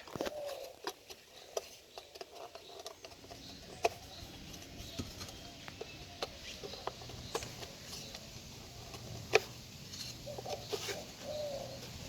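Irregular light clicks and taps, with a couple of short squeaks near the start and near the end.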